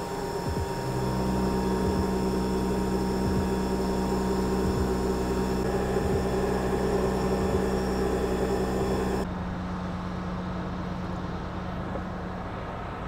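CNC milling machine cutting an aluminium bar: the spindle and cutter make a steady whine of several held tones, with faint ticks from the cut. About nine seconds in it gives way to a quieter, steady low hum.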